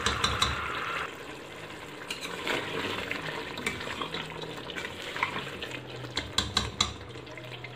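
Chicken pieces sizzling in oil in an aluminium pressure-cooker pot while a wooden spoon stirs and scrapes them, with scattered sharp knocks of the spoon against the pot. This is the bhuna stage, frying the curry in oil.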